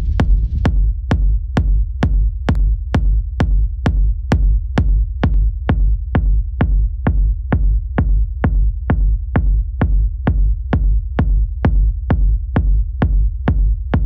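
Techno loop playing back from a DAW: a continuous deep bass under a short, sharp drum-machine hit repeating evenly about twice a second (around 130 BPM), with no melody. The hits lose some of their top end about four and a half seconds in.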